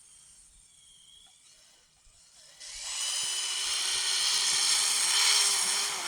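Traxxas Summit RC truck's electric motor and high-gear drivetrain whining steadily at full throttle, its 3D-printed tracks working through deep snow. The whine comes in suddenly about three seconds in, after a nearly quiet start.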